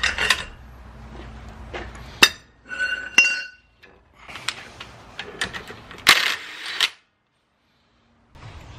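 Metal clinks and knocks of a breaker bar and 32 mm impact socket being worked on a car's rear axle nut as the nut is loosened and taken off the hub. A sharp knock comes about two seconds in, followed by a short ringing metallic clink; a scraping rustle follows near the end, and then the sound stops suddenly.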